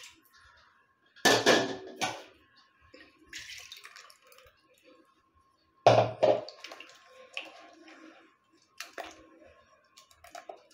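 A hand stirring and slapping thin rice-and-coconut appam batter in a steel bowl: wet sloshes and splashes, with two louder splashes about a second and about six seconds in, and batter streaming off the hand back into the bowl near the end.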